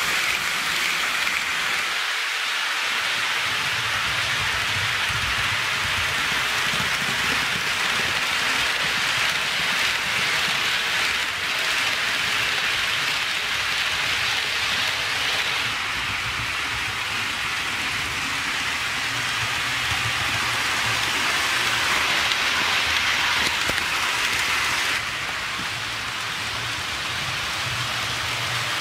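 HO scale model trains rolling on track: a steady rushing hiss of metal wheels on the rails over a low hum. The sound changes slightly about 2 and 25 seconds in.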